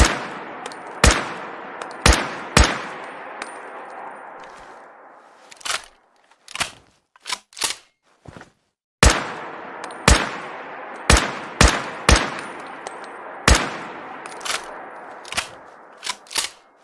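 Rifle sound effect: a string of about four sharp shots with long echoing tails, a few seconds of quieter metallic clicks and clanks, then a second string of about six shots with lighter clicks near the end.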